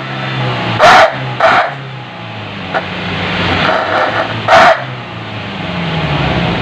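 Petrol car engine running through an Equalizer stainless-steel 'suos ngorok' aftermarket muffler: a low exhaust drone that swells twice. It is broken by three short, sharp, loud bursts, about a second in, a moment later, and about four and a half seconds in.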